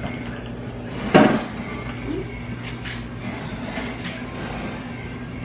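Arctic King chest freezer running with a steady low hum. A loud knock comes about a second in, followed by a few light clicks.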